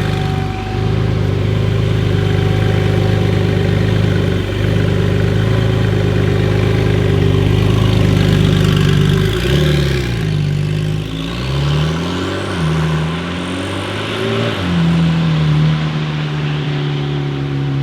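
Porsche 992 Carrera S twin-turbo flat-six running at steady revs, its pitch dipping and rising several times about halfway through as the revs change, then settling back to a steady note.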